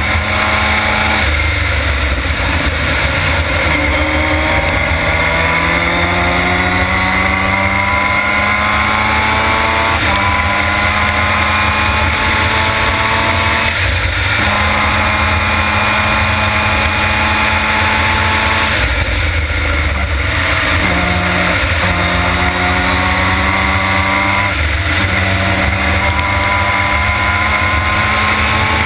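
Formula Mazda race car's rotary engine at full racing load, heard from on board. Its pitch climbs in long pulls and drops back at each gear change or lift, about half a dozen times, over a steady low rumble of wind and road noise.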